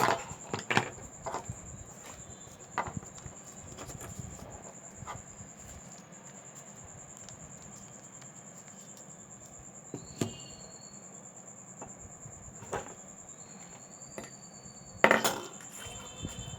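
Scattered small clicks and taps of metal tools against a smartphone's glass and frame as its display is taken off, with a louder clatter about fifteen seconds in. A steady high-pitched whine runs underneath.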